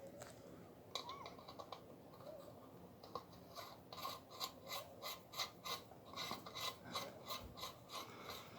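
Faint metallic scraping and clicking as the parts of an air cleaner are fitted together and tightened by hand. From about three and a half seconds in it becomes a regular run of short strokes, about three a second.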